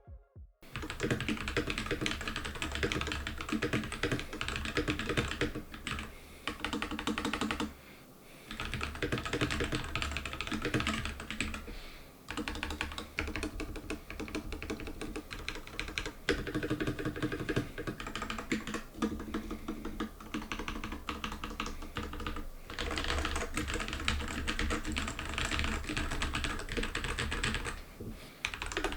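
Typing on a Royal Kludge RK84 75% mechanical keyboard fitted with Glorious Panda tactile switches, on a board with factory foam damping and lubed stabilizers: a fast, continuous run of key clacks with a few brief pauses.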